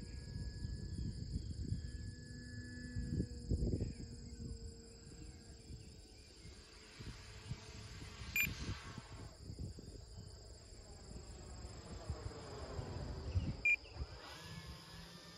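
Electric motor and propeller of an E-flite Carbon-Z Cessna 150T RC plane, faint at first and growing as the plane sweeps in for a close pass near the end, over a steady high trilling of insects. Wind buffets the microphone in uneven gusts, the loudest sound.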